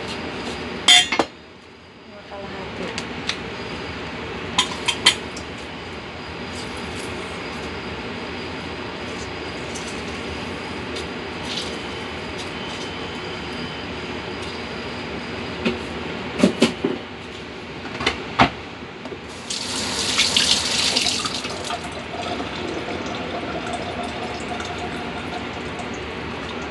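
A chef's knife knocks a few times on a wooden cutting board while cutting a lemon, over a steady rushing background noise. A brief louder hiss comes about twenty seconds in.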